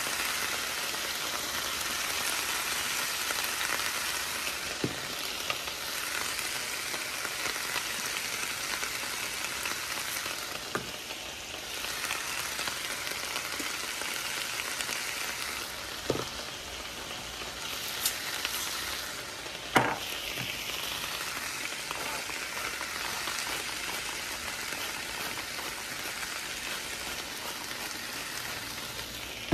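Broccoli, potatoes and carrots sizzling steadily in a frying pan with a little spray oil. A few sharp knocks come through, the loudest about twenty seconds in.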